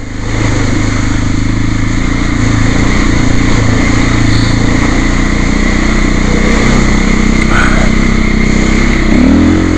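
Single-cylinder trail motorcycle engine pulling steadily under load while riding. It gets louder about half a second in and its note rises briefly near the end.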